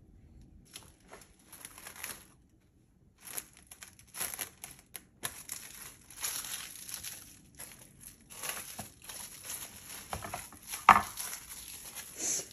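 Plastic cling wrap crinkling in many irregular bursts as it is pulled, handled and stretched over a glass baking dish, with one sharp, louder crackle near the end.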